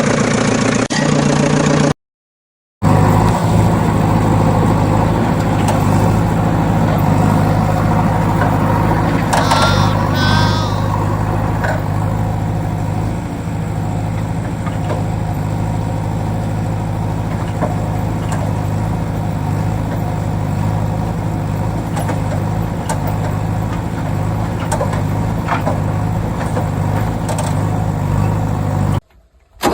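A heavy vehicle's engine idling steadily, with a brief warbling high tone about ten seconds in. Near the start the sound drops out briefly at an edit cut.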